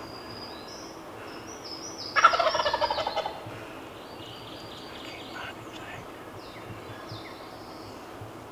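Wild turkey tom gobbling once, about two seconds in: a loud, rapid rattling call lasting about a second.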